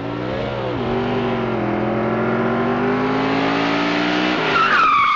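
Race car engine running and slowly climbing in pitch, with a quick rev up and back down near the start. About four and a half seconds in the engine drops away and tires squeal.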